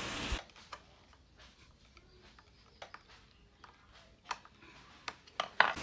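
A few short, light clicks and taps of a screwdriver working the clamp screw of an angle grinder's safety guard as the guard is tightened, spaced irregularly, with the sharpest ones near the end.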